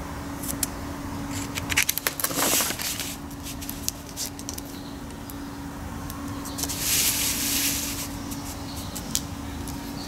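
Paper pages of an instruction manual being handled and turned: scattered crackles and rustles, with a longer swish of paper about two seconds in and another about seven seconds in, over a steady low hum.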